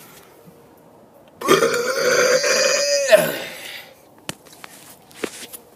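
A man's long, deliberate burp starting about a second and a half in: a loud belch held at a steady pitch for over a second, then dropping in pitch and ending with a short pop.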